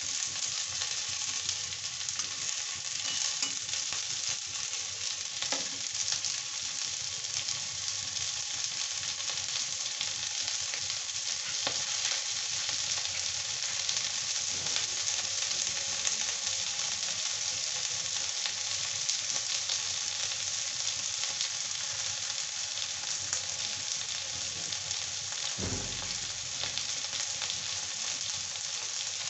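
Cut pointed gourd (parwal) pieces frying in oil in a wok, sizzling steadily with fine crackles; a spatula stirs them at the start.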